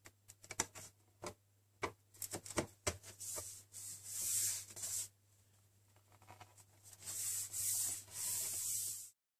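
Hands rubbing and sliding over a MacBook Pro's aluminium bottom case as it is pressed back into place. A string of light clicks and taps comes in the first three seconds, then two longer stretches of hissing rubbing.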